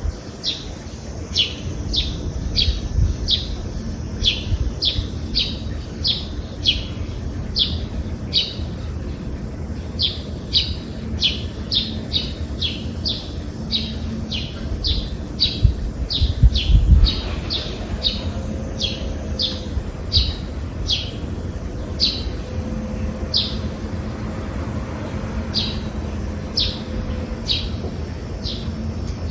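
A small bird chirping over and over, short sharp downward chirps about two to three a second, with a few gaps, over a steady low background hum. Just past halfway a low rumble swells briefly and is the loudest sound.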